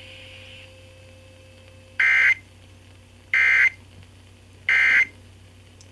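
Three short bursts of Emergency Alert System SAME data tones, the warbling digital squawk of the end-of-message code that closes an alert. Each burst lasts about a third of a second, spaced about a second and a half apart.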